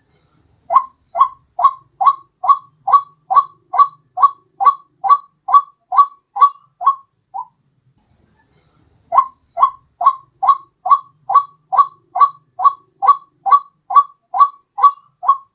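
White-breasted waterhen (ruak-ruak) call played as a bird lure: the same short call repeated about twice a second in two long runs, with a break of about two seconds in the middle.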